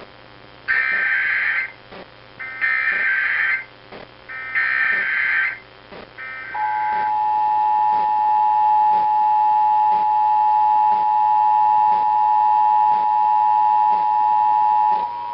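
Emergency Alert System SAME header: three buzzy data bursts of about a second each, one second apart. About six and a half seconds in, the two-tone EAS attention signal (853 and 960 Hz) starts and is held steady for about eight seconds.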